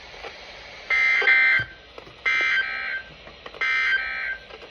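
NOAA Weather Radio SAME end-of-message data bursts: three short bursts of shrill digital warbling tones, about a second and a half apart, signalling the end of the severe thunderstorm warning broadcast.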